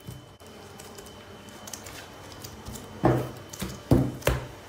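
Dough being handled on a wooden counter: faint rustling for the first few seconds, then a handful of short, soft thumps in quick succession as portions of dough are pressed and set down on the wood.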